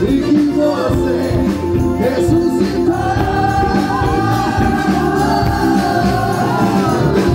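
Live Christian band music with a male singer over drums and bass. From about three seconds in a long note is held until near the end.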